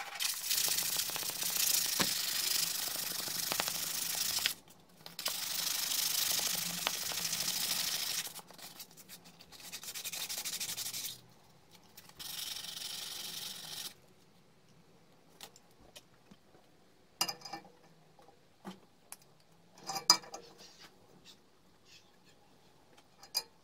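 A steel tube being sanded by hand with abrasive paper: four rasping runs of a few seconds each, with short pauses between. After that come a few light knocks as the metal pieces are handled.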